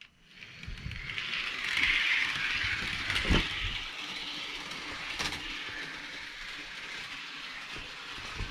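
Bachmann Paxton model train running on layout track: its small electric motor and wheels give a steady whir that builds up over the first two seconds and then holds, with two sharp clicks about a third and halfway through.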